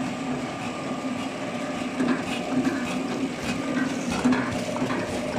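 Horizontal flow-pack packaging machine running with a steady hum. Irregular clicks and knocks come in from about two seconds in.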